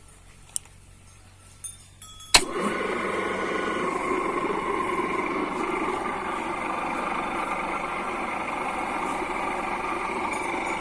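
A 3 HP three-phase monoblock pump motor is switched on with a sharp click a little over two seconds in, then starts at once and runs steadily.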